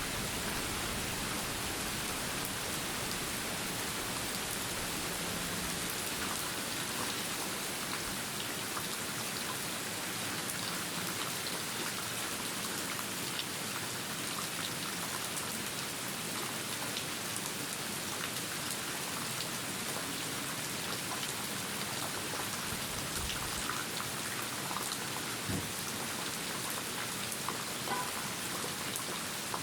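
Steady, even rainfall with scattered close drops ticking. A low rumble of thunder dies away over the first few seconds.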